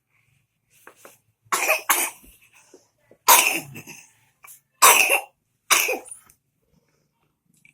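A person coughing from a cold: five hard coughs in a row over about five seconds, the first two close together.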